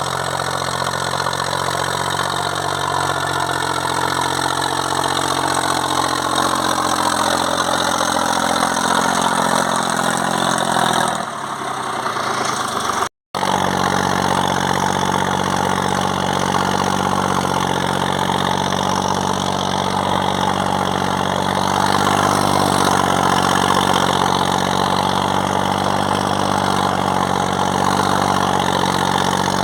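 Zetor 5011 tractor's three-cylinder diesel engine running steadily, pulling a plough. The sound dips a little and breaks off for an instant about thirteen seconds in, then the engine carries on unchanged.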